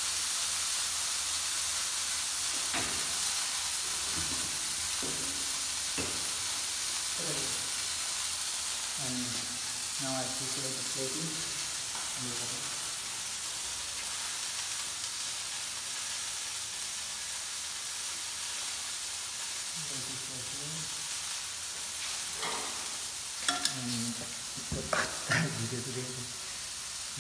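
Food frying in oil in a pan on a gas range, a steady sizzling hiss that slowly fades, with a few faint low sounds now and then.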